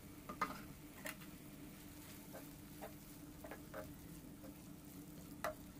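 A wooden spatula stirring cluster beans and tomatoes in a nonstick frying pan, giving scattered light taps and scrapes, over a faint steady hum.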